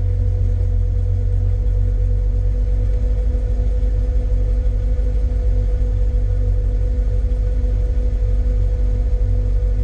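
Car engine idling, heard from inside the cabin as a steady low rumble with a faint steady tone above it.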